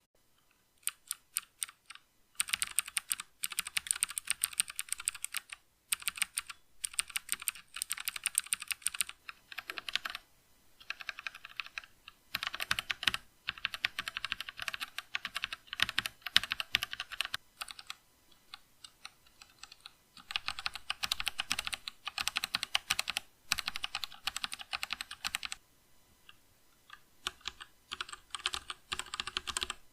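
Typing on a mechanical keyboard fitted with Outemu switches: rapid runs of key clicks lasting a few seconds each, broken by short pauses.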